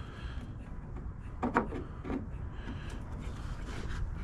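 Faint scraping and a few light clicks of a car door lock cylinder being pushed and worked into its hole in the door, a tight fit on fresh paint.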